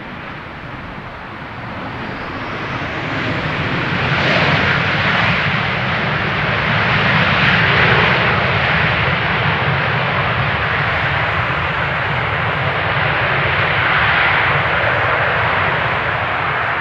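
KLM Boeing 737's twin CFM56 jet engines on the landing rollout just after touchdown. The noise grows louder between about two and four seconds in, then stays loud as the airliner decelerates down the runway.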